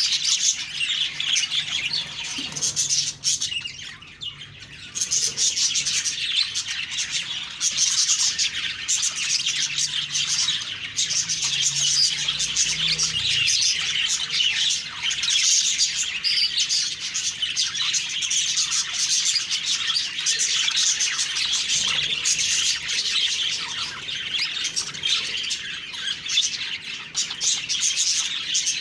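Budgerigars chirping and warbling in a dense, continuous chatter, with a brief lull about four seconds in.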